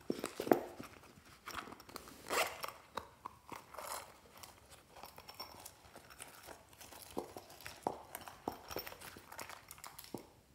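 Soft foam squishy toy being squeezed and worked in the hands: irregular crackling and crunching, loudest about half a second in.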